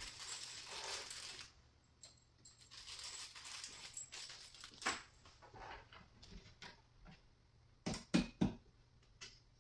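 Flat-pack furniture parts being handled and fitted: a brief rustle, then scattered light clicks and knocks, with a quick cluster of three near the end.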